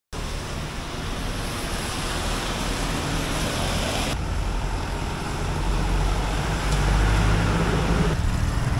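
Road traffic noise: vehicles running by with a low engine hum under a steady wash of noise. It changes abruptly about four seconds in and again near the end.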